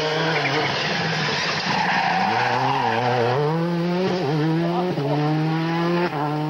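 Rally car taking a tight hairpin: the engine note falls as it slows into the bend, with tyre noise through the corner, then climbs again as it accelerates away, with a couple of sudden gear changes near the end.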